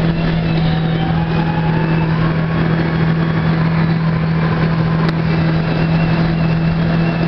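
Jet ski engine running at a steady pitch, heard from on board, a constant low drone with a hiss of water and wind over it.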